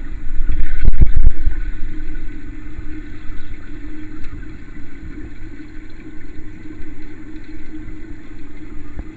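Steady low motor hum, with a few heavy low thumps about a second in.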